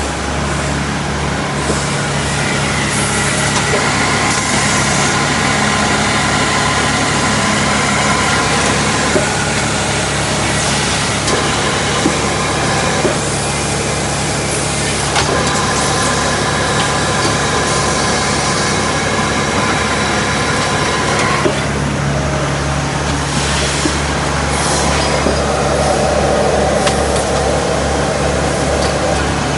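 Automatic toilet-roll bundling and packing machine running: a steady mechanical hum with a high whine, broken by occasional sharp clicks.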